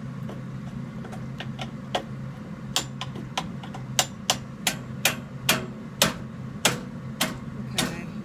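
Furnace heating system clicking repeatedly over a steady low hum. The clicks are sparse and faint at first, then from about three seconds in sharper and regular at about two a second. The owner cannot tell whether they come from the pipes or a valve.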